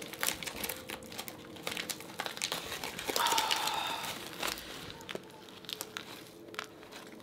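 Aluminium foil wrapper of a chocolate orange crinkling as it is peeled open by hand, a run of sharp little crackles that gets denser and louder about three seconds in.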